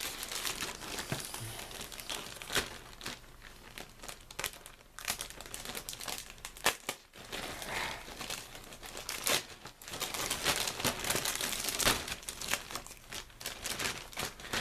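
Thin plastic bag crinkling and rustling as plastic model-kit parts sprues are handled and slid in and out of it. The crackling comes in irregular spurts.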